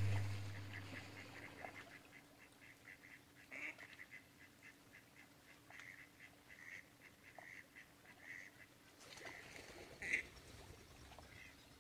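Waterfowl calling across the lake: a long run of short, evenly spaced calls, about four a second, with one louder call near the end. A low hum fades out in the first second.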